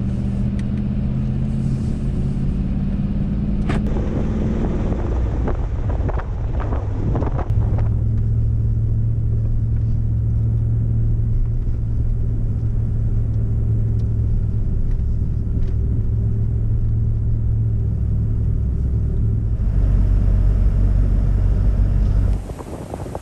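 Ram Power Wagon pickup driving on beach sand, heard from inside the cab: a steady low drone of engine and tyres. A few knocks and rattles come about five to seven seconds in, and the rumble grows heavier near the end before dropping off suddenly.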